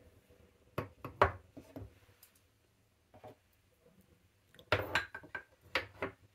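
Small containers set down one by one in a wooden tray and against the jars already in it: a string of light knocks and clinks, the sharpest about a second in and a close cluster near the end.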